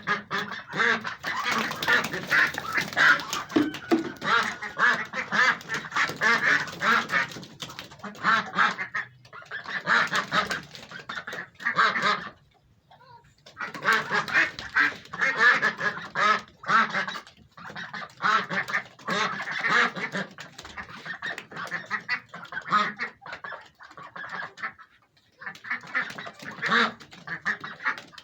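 A flock of domestic ducks quacking continuously, many rapid overlapping calls, breaking off briefly twice.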